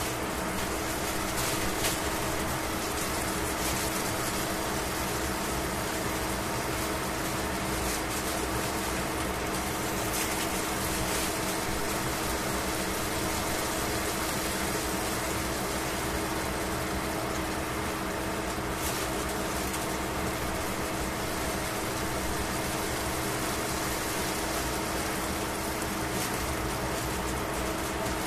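A slice of pork steadily sizzling in a stainless steel frying pan, an even crackling hiss that does not change, over a constant low hum.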